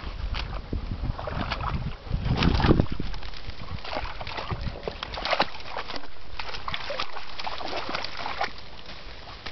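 Dogs splashing and sloshing through water: an irregular run of splashes, loudest about two seconds in.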